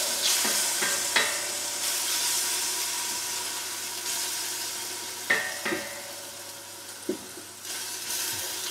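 Smoked bacon lardons sizzling in olive oil in a stainless steel stock pot, the sizzle slowly dying down. A wooden spatula scrapes and knocks against the pan a few times as they are stirred.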